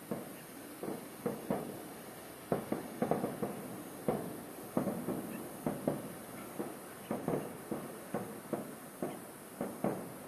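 Aerial fireworks bursting in quick, irregular succession, a string of sharp bangs each followed by a short echoing tail.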